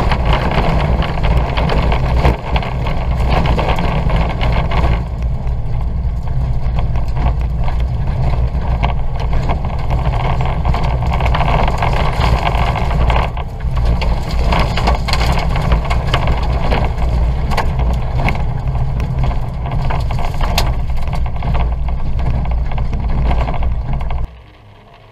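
Ford Fiesta 1.2's engine running hard and its tyres on loose dirt and grass, heard from inside the cabin, with frequent knocks and clatter from the rough surface. The noise cuts off suddenly near the end.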